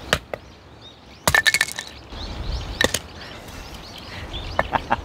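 An axe striking firewood: separate sharp knocks, with a quick rattle of hits about a second and a half in and again near the end, as the log resists splitting.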